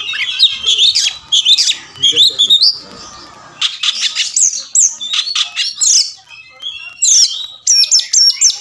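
Male Oriental magpie-robin singing: fast runs of whistles, sweeping chirps and harsh scratchy notes, with a short lull about three seconds in, then a dense burst of rapid notes.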